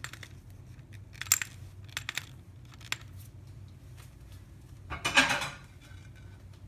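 Scattered clicks and clinks from handling a manual coffee grinder while its grind adjustment is tightened for a fine grind, with a louder short rattle about five seconds in.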